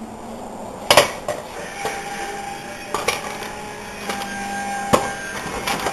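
Irregular hard clacks and knocks, about seven of them, like hard objects being handled and set down; the loudest come about a second in and again near the end.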